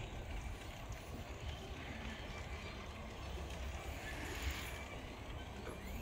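Wind buffeting the microphone during a bicycle ride: a steady, flickering low rumble with a faint hiss above it.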